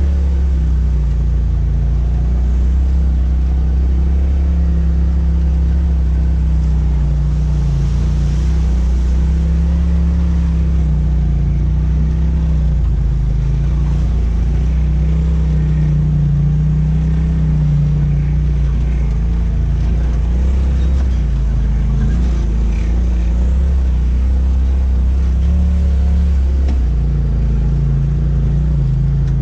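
Polaris RZR XP Turbo S side-by-side's turbocharged twin-cylinder engine running under light throttle at low speed, heard from inside the cab as a steady drone whose pitch rises and falls slightly with the throttle.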